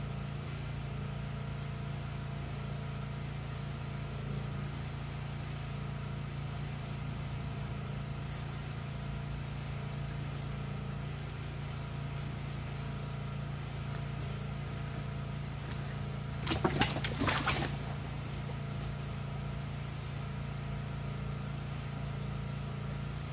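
A steady engine drone at constant speed, unchanging throughout. Past the middle comes a brief, loud crackle of dry brush and branches snapping as they are pulled and broken.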